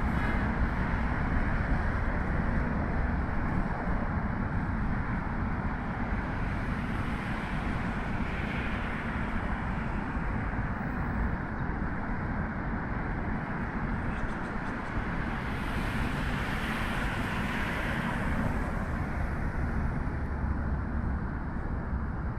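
Steady rumble of busy road traffic, with a vehicle passing louder about sixteen seconds in.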